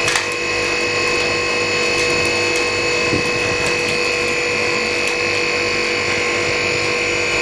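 Freezing LCD separator machine running: a steady mechanical hum with a constant high whine over it.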